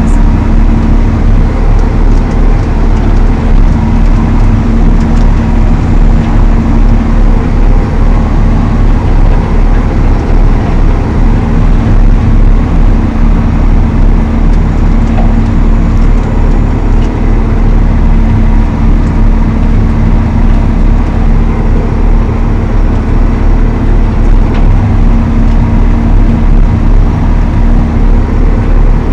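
Valtra T214 tractor's six-cylinder diesel engine running loud and steady at an even speed, with a constant low hum.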